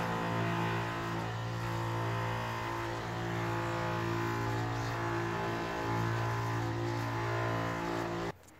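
Small 12 V electric diaphragm pump running with a steady hum as it sucks used engine oil up through the dipstick tube into a plastic bottle. It cuts off suddenly near the end.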